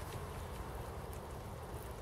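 Steady outdoor background noise: an even hiss over a low rumble, with no distinct knocks or crackles.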